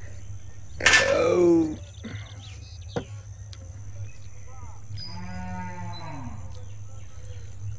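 Cattle mooing: a loud call about a second in and a second, arching call around five seconds in.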